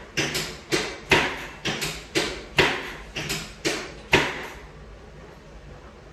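Rapid run of about a dozen sharp clicks, two or three a second, from a chiropractic adjustment of the hips. The clicks stop a little after four seconds in.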